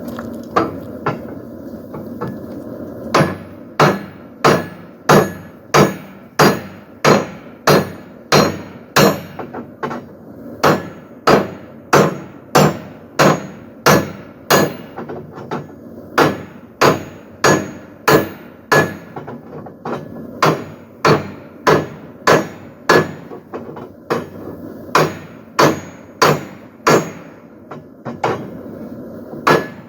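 Hand hammer striking hot steel on an anvil, hand-forging a poleaxe head: sharp ringing blows in a steady rhythm of about one and a half a second, with a few lighter taps at first and brief pauses between runs.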